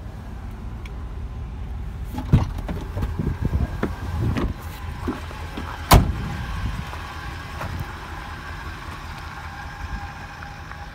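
Knocks and clatter of handling at the cab of a 2010 Ford E-350 cutaway van. Then one sharp bang about six seconds in as the cab door is shut, all over a steady low rumble.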